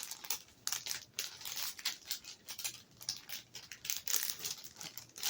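Packaging crinkling and rustling in irregular crackly bursts as a small boxed item is handled and unwrapped by hand.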